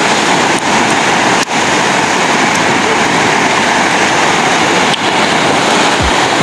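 Fast, high river running over rapids: a loud, steady rush of water.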